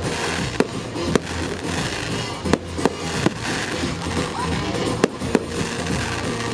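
Aerial firework shells bursting, about seven sharp bangs at irregular intervals, over the music played along with the display.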